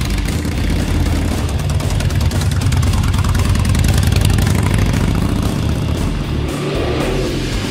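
Chopper motorcycle engine revving and riding past, loudest about four seconds in and easing off after, over rock music.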